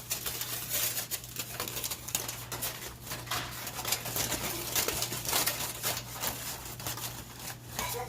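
Aluminum foil crinkling and rustling with irregular crackles as it is pressed back over a pan of wings.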